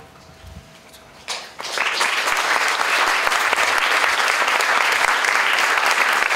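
Audience applauding, breaking out about a second in and then holding steady.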